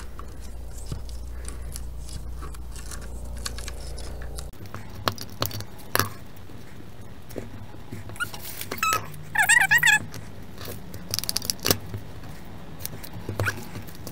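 Construction-paper strips rustling and scraping, with clicks and taps as a glue tape runner is pressed onto the paper corners. A low hum stops about four seconds in, and a brief high wavering squeal sounds about halfway through, the loudest sound.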